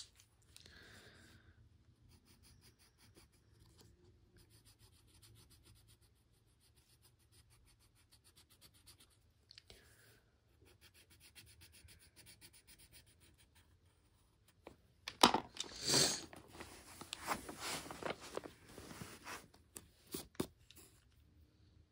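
Coloured pencil scratching on paper in quick, faint strokes. About fifteen seconds in, louder rustling, scratching and clicks take over for several seconds.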